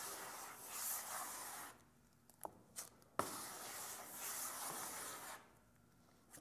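Plastic spreader scraping and smearing body filler across a mixing board while it is mixed with hardener: two stretches of soft scraping about two seconds each, with a pause and a couple of small clicks between them.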